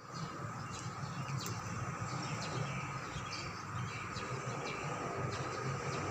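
An unexplained steady low droning rumble from the sky, wavering in strength, with a thin steady whine above it. Birds give short chirps throughout.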